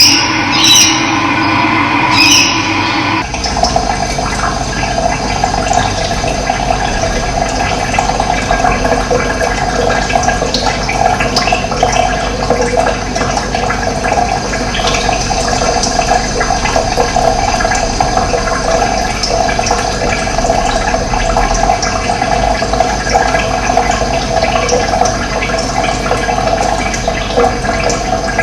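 Running water splashing steadily, a dense trickling flow. For the first three seconds a different sound with two sharp clicks plays, then it cuts abruptly to the water.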